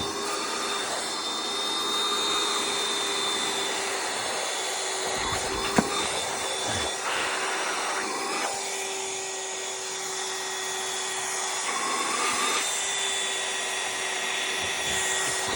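Vacuum cleaner running steadily, with a motor whine over its hiss that shifts in tone a few times, and one sharp knock about six seconds in.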